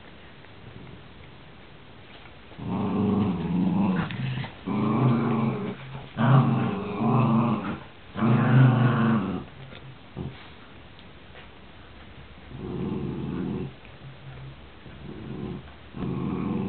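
Dogs play-growling while tugging on a rope toy: four long growls in quick succession from about three seconds in, then a pause, and shorter growls near the end.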